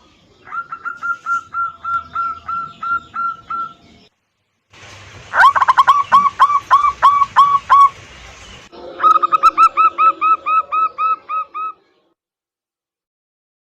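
Zebra dove (local perkutut) song played as a lure call: three separate bouts of quick repeated cooing notes, about four a second, each lasting around three seconds with short gaps between them, ending about two seconds before the end.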